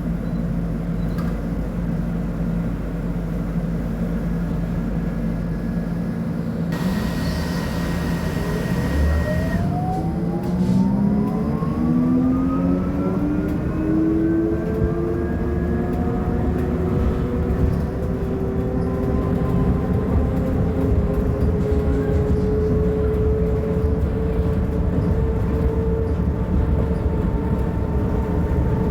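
Caio Millenium II / Mercedes-Benz O500UA trolleybus's electric traction motor whining as the bus pulls away, its pitch rising smoothly and then holding steady at speed. Just before, a high steady tone with a hiss sounds for a couple of seconds.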